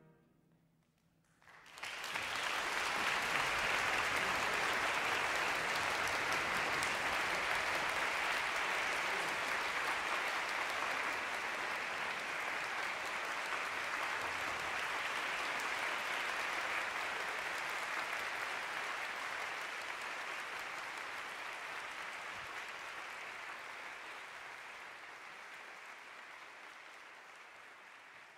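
Audience applauding, starting after about a second and a half of silence, holding steady and then slowly fading toward the end.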